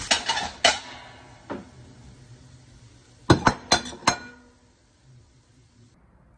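Cooking utensils clinking and knocking against a frying pan of shrimp fried rice while the last of the sizzle dies away. There are a few sharp clinks at the start, one more a second later, then a quick run of four sharp knocks about three seconds in, after which it goes quiet.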